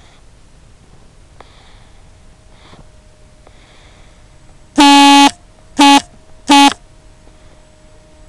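Three loud electronic beeps a little under five seconds in: one long beep followed by two short ones, each a single buzzy tone.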